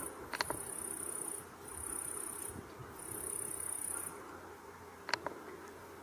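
High-pitched insect trilling in bursts of about a second each with short gaps, stopping about four seconds in. Two short sharp clicks, one near the start and one about five seconds in.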